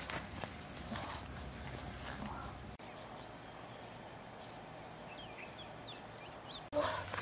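Outdoor ambience with an insect's steady high-pitched drone and rustling steps through grass. About three seconds in, this cuts abruptly to a quieter bed with a few faint high chirps, and the insect drone comes back near the end.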